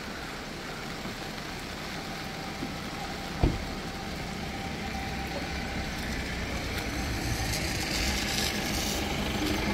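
A motor vehicle approaching on the road, its engine and tyres growing steadily louder. A single short knock comes about three and a half seconds in.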